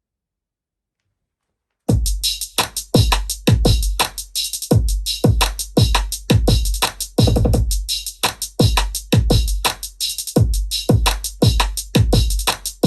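Electronic music with a drum-machine beat and heavy bass, played loud through a portable Bluetooth boombox speaker. It starts abruptly about two seconds in, after dead silence.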